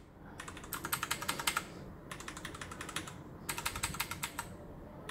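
Mechanical keyboard keys tapped rapidly in several short bursts: a Ducky with clicky Cherry MX Blue switches and a Leopold FC660M with Cherry MX Brown switches, played against each other to compare their sound.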